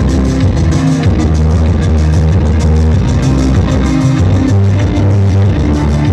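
Loud recorded dance music with guitar and a strong bass line over a steady beat, played through a sonidero's PA sound system.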